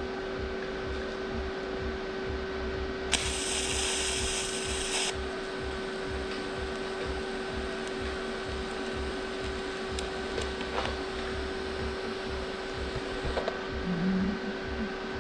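TIG welder running a fusion weld on a steel tube joint: a steady electrical hum over a fast pulsing low buzz, with a two-second burst of hiss about three seconds in.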